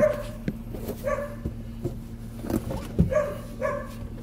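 A dog barking: two barks at the start and two more about three seconds in.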